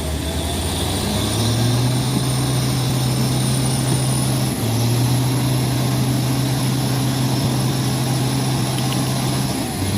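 Heavy truck's diesel engine labouring hard under a full load in deep mud. The engine note rises about a second and a half in and holds high, with a brief dip midway, then eases off near the end.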